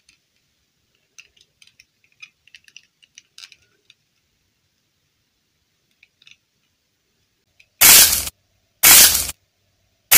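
Light clicks and taps as a small plastic doll is handled, then three loud rushes of noise, each about half a second long and about a second apart, near the end.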